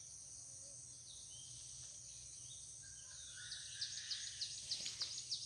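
Steady high drone of insects, with a small bird calling a quick series of high, short downward chirps, about three a second, starting about three and a half seconds in.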